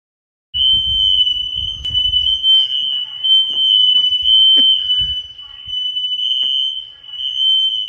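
Smoke detectors going off, a single high-pitched alarm tone held steady without a break, starting about half a second in. A low rumble underneath for the first couple of seconds and a few sharp knocks.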